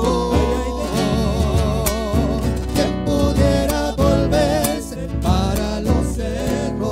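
Argentine folk vocal group singing held notes in several-voice harmony with vibrato, over two strummed and plucked acoustic guitars.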